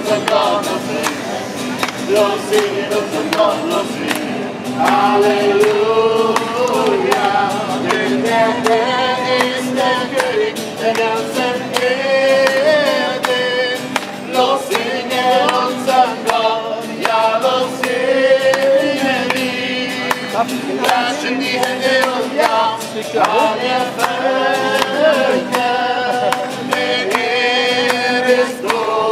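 A group of voices singing a Christian worship song with musical accompaniment.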